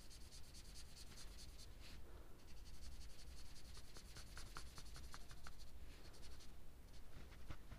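Felt-tip marker scribbling rapidly back and forth on paper, colouring in a shape: a faint, quick scratching of strokes, with a few short squeaks about halfway through.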